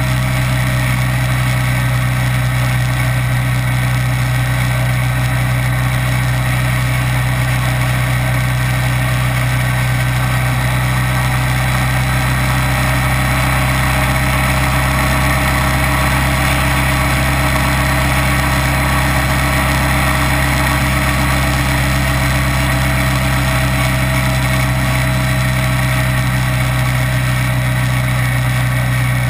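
Kawasaki Vulcan 900's V-twin engine running at a steady pitch, with no change in revs.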